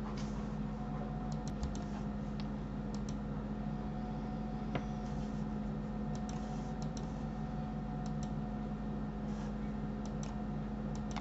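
Scattered light clicks of a computer mouse and keyboard, irregular and spread across the whole stretch, over a steady low electrical hum.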